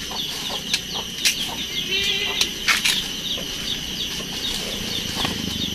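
Birds chirping rapidly and steadily in the background, with a few sharp clicks from a knife cutting into water apples.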